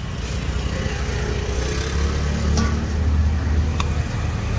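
Low rumble of a motor vehicle going past, swelling to its loudest about two to three seconds in. A couple of light knocks are heard in the middle of it.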